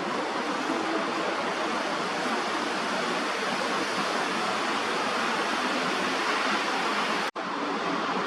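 Steady rushing background noise with no distinct events, cut by a brief dropout about seven seconds in.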